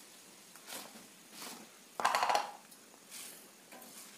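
Hands handling sal leaves and small raw fish: a few short soft rustles, with a louder quick rattle of clicks about two seconds in.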